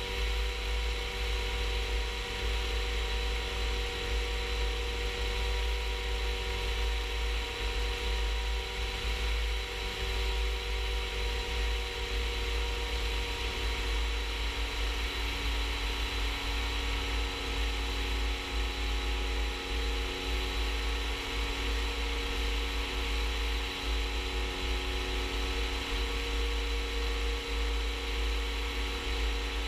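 Rans S-14 ultralight's engine and propeller droning steadily in cruise flight, with a strong fluttering low rumble of wind on the outside-mounted microphone.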